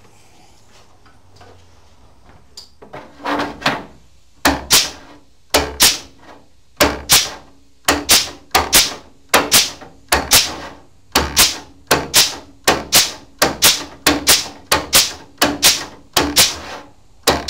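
Pneumatic flanging tool clacking in short repeated strokes as it presses a step flange into the cut edge of a 1971 Camaro's steel quarter panel, a little more than one stroke a second, starting about three seconds in.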